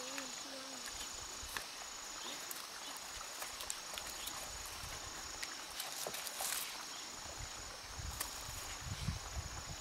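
An insect trilling steadily in a high, thin tone, broken by short gaps about every second and a half. Scattered light clicks and a few low thumps late on come from the outdoor surroundings.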